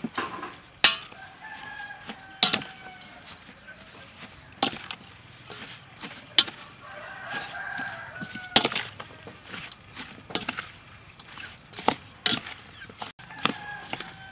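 A wooden spoon knocks and scrapes against a stainless steel bowl while a salad is tossed, sharp knocks every second or two. Chickens call in the background, three drawn-out calls.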